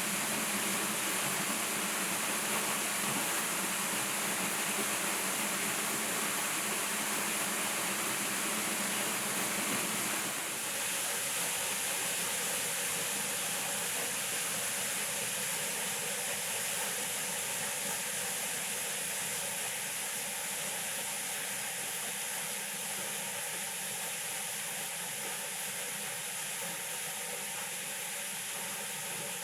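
Small monsoon stream flowing, a steady rushing hiss of water. About ten seconds in the lower part of the rush drops away and the sound turns thinner and brighter.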